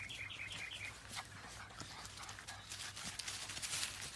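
Labrador retriever puppies give a quick run of short high squeaks in the first second, then their paws scuffle and rustle in dry leaf litter as they play.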